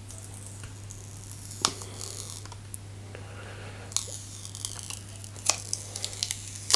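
Cracked tempered-glass screen protector being peeled off an iPhone's screen: crackling, tearing sounds with scattered sharp clicks as the broken glass comes away, in two spells, near the start and again from about four seconds in.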